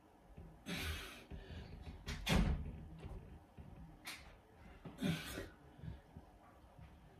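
Short, forceful breaths from a man doing press-ups, one every second or two; the loudest, about two seconds in, lands with a thump.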